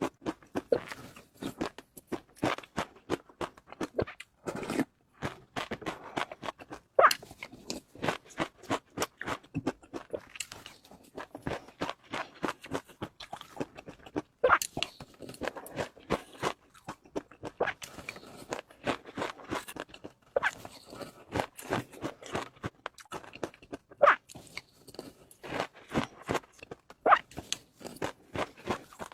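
A person chewing and crunching food close to the microphone, with a steady run of quick, irregular crisp crunches and clicks.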